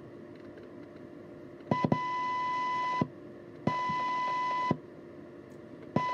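CB radio speaker sounding the received 1 kHz test tone in three bursts, about a second, a second and half a second long, each opening and closing with a click as the squelch opens and shuts. The test signal sits right at the squelch threshold, around half a microvolt.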